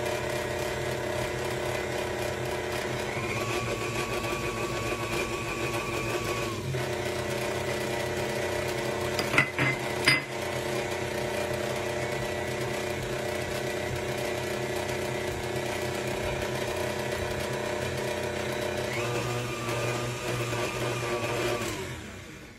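Electric mixer running steadily, beating eggs into creamed butter and sugar for a cake batter. A higher whine joins in twice for a few seconds, and there are two sharp knocks on the bowl about ten seconds in. The mixer shuts off near the end.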